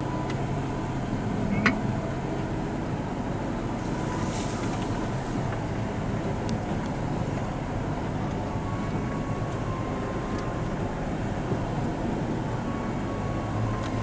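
Daihatsu Move kei car's engine and road noise heard from inside the cabin as it climbs slowly up a grass-overgrown track: a steady drone, with a single sharp click about two seconds in.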